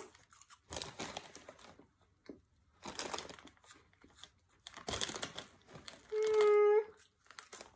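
Crunchy cheese corn twist puffs being chewed while a plastic snack bag crinkles, in short bursts about two seconds apart. About six seconds in comes a short, level hummed "mmm".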